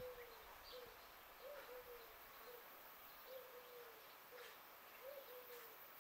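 A dove cooing softly, a three-note phrase (short rising note, longer falling note, short note) repeated about every two seconds, with a few faint chirps from small birds.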